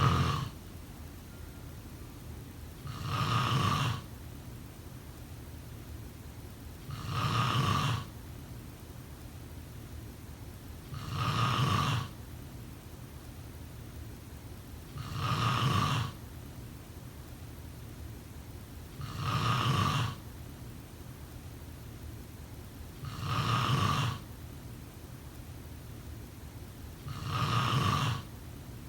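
Snoring, one snore about every four seconds, each lasting about a second and coming at an even pace, over a steady low background noise.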